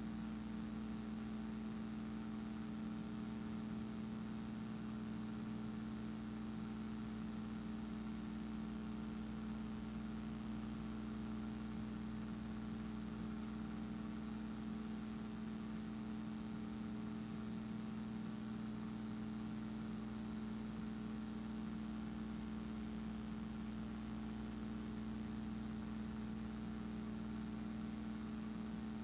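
Steady machine hum with faint hiss, unchanging, with no sound from the filmed scene. The footage is silent Standard 8 cine film, so the hum comes from the playback or transfer equipment.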